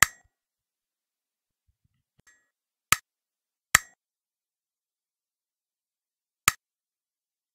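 Four short, sharp clinks, each a single click with a brief metallic ring: one at the start, two close together just before and after three seconds in, and one about six and a half seconds in.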